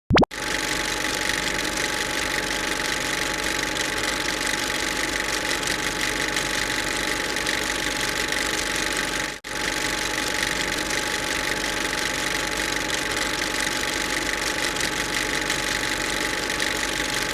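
A steady, unchanging machine running noise with a faint hum. It drops out for a split second about nine seconds in, then carries on the same.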